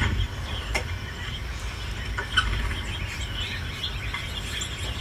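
Small birds chirping on and off over a steady low rumble, with a couple of sharp clicks.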